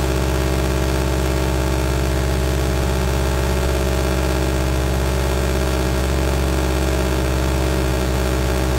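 An engine idling steadily, a low, even hum that holds the same pitch.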